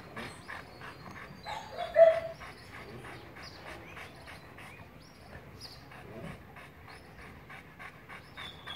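A dog panting steadily, about three to four breaths a second, with one short louder pitched sound about two seconds in.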